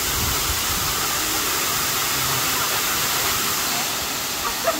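Waterfall rushing: a steady, even rush of falling water.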